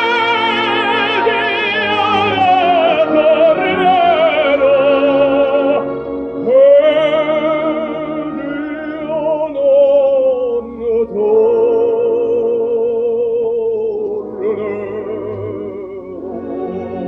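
Operatic tenor singing long, sustained notes with a wide vibrato. A phrase falls in pitch over the first few seconds, breaks off briefly, and a new held note begins. After a short dip the voice swells into a long held note that tapers away near the end.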